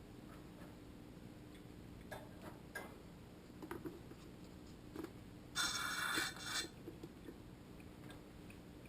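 A few light clicks and taps of fork parts and tool, then about halfway through a hissing slurp lasting about a second, as the fork oil-level syringe draws off excess oil and starts sucking air once the level is reached.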